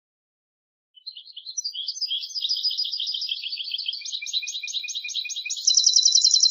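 European goldfinch singing: about a second in, a run of quick twittering notes begins and builds into a faster, even, louder trill near the end.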